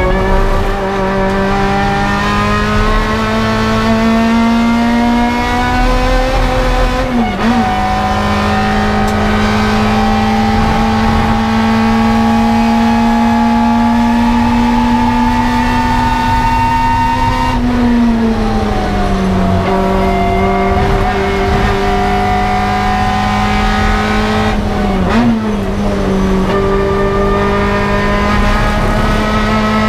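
Toyota KE70 Corolla's 4A-GE twin-cam four-cylinder engine running hard at high revs, heard from inside the stripped race cabin. Its note climbs slowly through long pulls, with a quick dip about seven seconds in and another near the end where gears are changed, and the revs fall away for a couple of seconds just past the middle.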